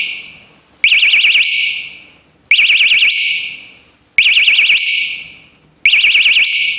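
Bicycle anti-theft alarm set off by vibration while armed, sounding its first short alarm stage: loud bursts of a rapid warbling siren, each well under a second long, repeating about every second and a half, four of them plus the fading tail of one just before.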